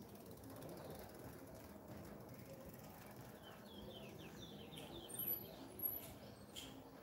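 Faint quick ticking of a bicycle's freewheel as it coasts past, followed about three seconds in by a short run of rapid bird chirps.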